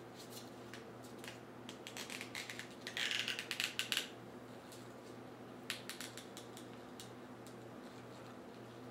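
Handling sounds from twisting a twist tie around a yarn-and-foam spawning mop: soft rustling and crinkling with small clicks, loudest about three seconds in, a few more clicks around six seconds, then only a low steady hum.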